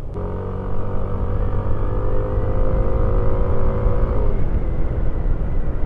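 Yamaha scooter engine running while riding, with a dense low rumble of wind and road noise on the handlebar-mounted camera; a steady engine tone holds, then drops away about four seconds in.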